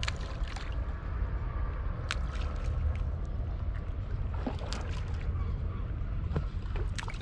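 Handfuls of mushed bread-and-fish-oil chum thrown onto calm sea water, landing with small sharp splashes several times. A steady low rumble runs underneath.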